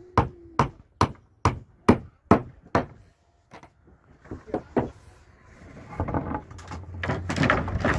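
Hammer driving a nail into wooden ceiling boards: about seven even, sharp strikes, a little over two a second, that stop about three seconds in. After a short pause come a few lighter knocks, then a stretch of rough scraping and clatter near the end.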